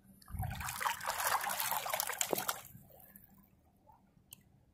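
Water splashing and trickling as a hand in a fabric shark puppet paddles through shallow water, starting with a low bump and stopping about two and a half seconds in.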